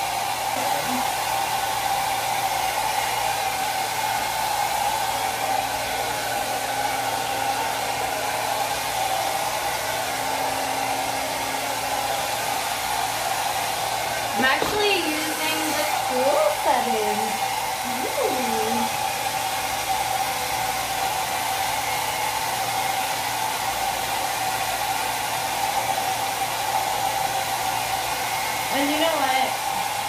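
FHI Heat Platform Nano Weight Pro 1900 Turbo hair dryer running steadily as it blows on hair: an even rush of air with a steady whine over it.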